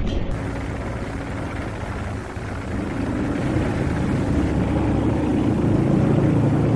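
A steady, dense low engine rumble of war machinery, growing louder about three seconds in.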